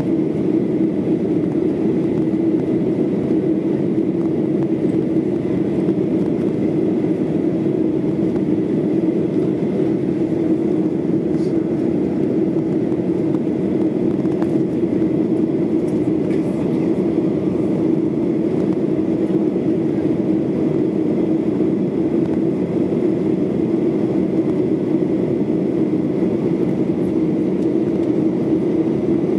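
Steady cabin noise of a Boeing 737-800 climbing after takeoff, heard from inside the cabin: its twin CFM56 jet engines and the rushing air make a constant low drone, with a faint steady high tone above it.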